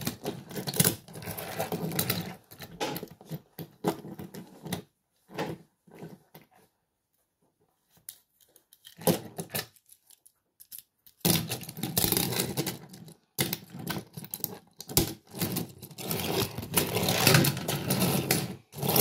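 Plastic TrackMaster push-along toy engines rolled and handled on a tabletop: wheels rattling and clattering in irregular stretches, mostly quiet for several seconds in the middle before a busier run of rattling near the end.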